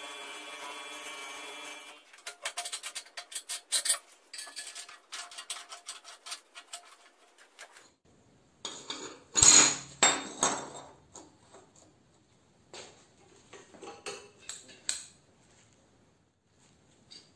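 Angle grinder running steadily in a homemade bench mount, cutting off abruptly about two seconds in. Then come scattered clinks and clanks of steel being handled, with one loud clang about halfway through as a steel strip is set down on a steel welding table, and lighter metal clicks near the end.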